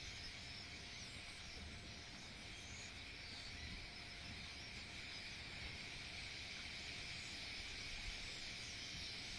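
A large flock of small birds chattering: a faint, steady high-pitched din, with a low rumble underneath.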